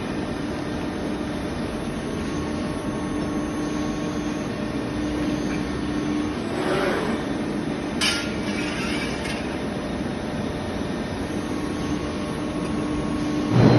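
CNC press brake running with a steady hum, with a short mechanical sound about halfway through, a sharp click followed by a brief hiss, and a louder thump near the end.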